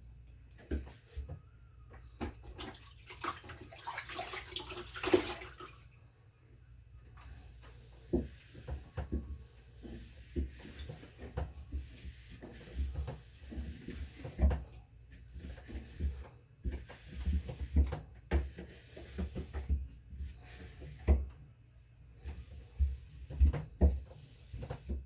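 Cleaning the inside of a refrigerator with a wet cloth: wiping, water splashing and sloshing, with scattered knocks and bumps. A denser spell of splashing comes a few seconds in.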